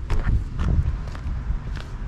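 A few footsteps and light knocks over a steady low rumble.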